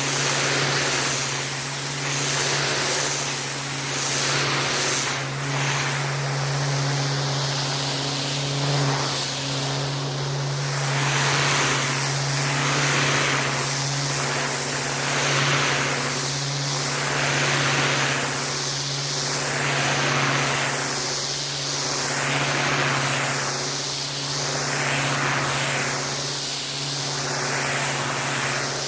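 Pressure washer running, its motor or engine humming steadily under the hiss of the spray. The spray swells and fades in regular sweeps about every two seconds as the jet is passed back and forth over a surface.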